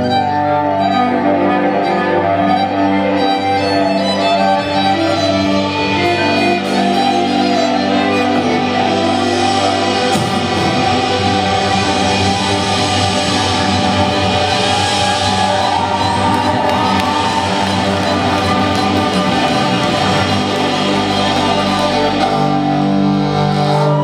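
A rock band of cello, violin, electric guitar and drums playing live at full volume, holding long sustained chords.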